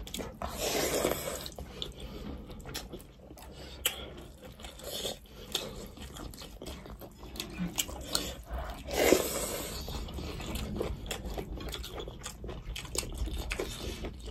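Close-miked chewing and biting of rice and fish eaten by hand: wet mouth sounds with many small crunches and clicks, and two longer, louder stretches about a second in and around nine seconds.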